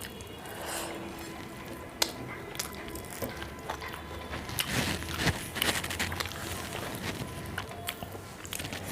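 Close-up eating sounds: biting and chewing a mouthful of rice and curry, with crunchy bites and wet mouth clicks. A sharp click about two seconds in, and a denser run of crunching near the middle.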